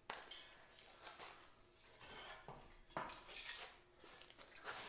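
Light metallic clinks and knocks as a small 97cc mini bike engine is worked loose and lifted off its steel frame mount, with sharp clicks at the very start and about three seconds in.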